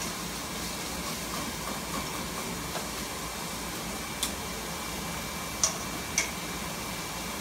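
Food sizzling steadily in a frying pan, stirred with chopsticks, with three sharp clicks: one about four seconds in and two close together near the end.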